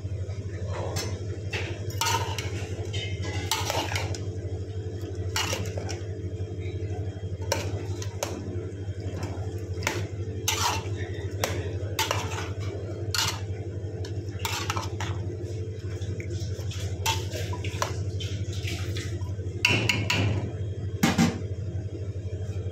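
Metal spoon stirring potato cubes in a metal pot, scraping and clinking against the pot at irregular intervals, with the loudest knocks near the end. A steady low hum runs underneath.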